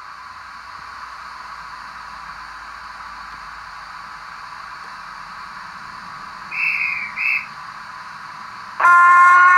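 DCC sound decoder in an OO-gauge model LMS Duchess steam locomotive playing through its small speaker: a steady hiss, two short high toots about six and a half seconds in, then a loud, long whistle starting near the end.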